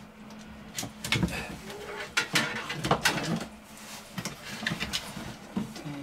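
Handling noises from a plastic-and-metal CCTV DVR recorder and its cables being moved about on a particleboard shelf: an irregular string of clicks, knocks and rustles, busiest and loudest from about one to three and a half seconds in.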